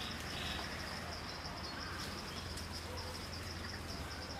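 Insects chirring in a steady, fast-pulsing high trill, over a low steady hum and a few faint bird chirps.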